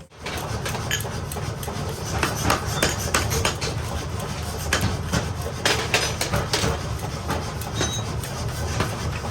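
Hammers striking steel during axe forging, an uneven run of sharp metallic blows, with a steady low machine hum underneath.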